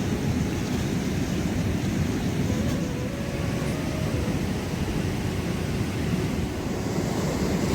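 Steady rushing of a fast mountain river, an even, low-heavy roar of water.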